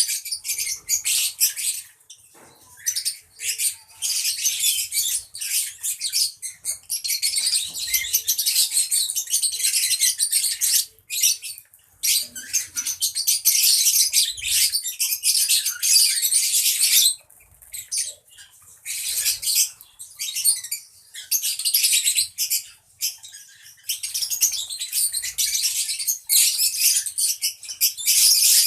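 A group of lovebirds chattering: dense, rapid high-pitched chirps and squeaks in long stretches with a few short pauses.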